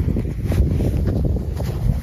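Wind buffeting the microphone, a loud, uneven low rumble.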